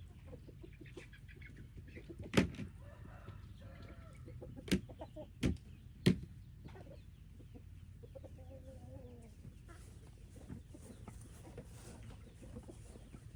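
Chickens clucking quietly, with four sharp knocks between about two and six seconds in.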